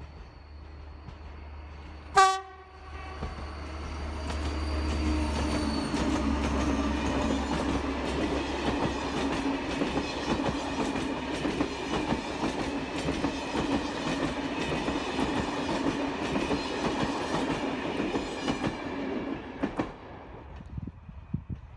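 French diesel locomotive of the BB 67400 type hauling passenger coaches: one short horn blast about two seconds in. Then the train passes for about fifteen seconds, its engine running and its wheels clicking over rail joints, before the sound drops off sharply near the end.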